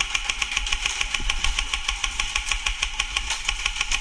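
Airsoft rifle firing one long full-auto burst, a rapid even rattle of about nine or ten shots a second over a steady whine.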